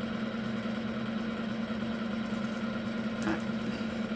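Steady machine hum with a constant low tone, unchanging throughout, and one faint tap about three seconds in.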